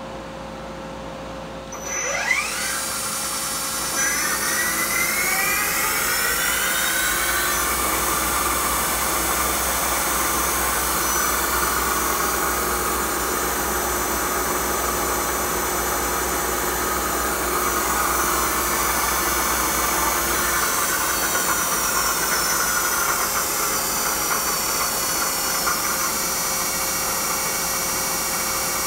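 Takisawa LA-250 CNC lathe spindle running up to speed: a whine that rises in pitch from about two seconds in, then holds steady near 3,000 rpm. Its pitch eases a little lower in the later part.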